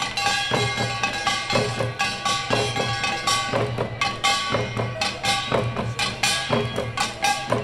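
Korean pungmul percussion ensemble playing janggu hourglass drums and buk barrel drums in a quick, driving rhythm, with steady ringing tones held over the strokes.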